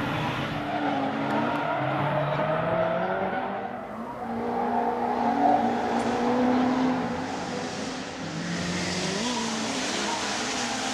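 Drift cars' engines revving, the pitch rising and falling, with tyre squeal building toward the end as the cars slide through a corner.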